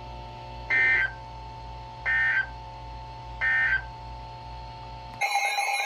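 Three short, buzzy bursts of NOAA Weather Radio SAME digital data, about a second and a half apart: the Emergency Alert System end-of-message code that closes a broadcast alert. They sound over a steady hum from the radio. Near the end it cuts abruptly to a louder warbling electronic alarm tone.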